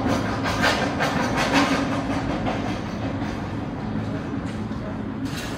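Plastic-bottle return machine (reverse vending machine) running as bottles are fed in: a steady motor hum with a rattling clatter over it.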